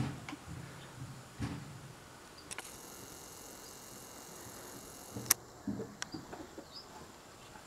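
Camcorder zoom motor whining steadily for about three seconds, starting about two and a half seconds in and stopping with a sharp click, among soft low thumps of handling noise.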